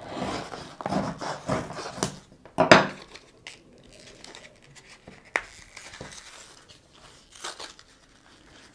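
A folding knife cutting through a cardboard-and-plastic blister pack, then the pack being pulled apart and crinkled in the hands. The loudest tear comes a little under three seconds in, and a sharp click follows about halfway through.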